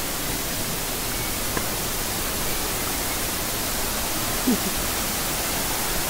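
Steady rushing of a rocky mountain stream, water flowing over boulders.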